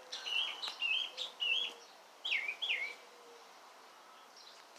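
A songbird singing: a quick run of short whistled notes that slide up and down, about seven of them, stopping about three seconds in.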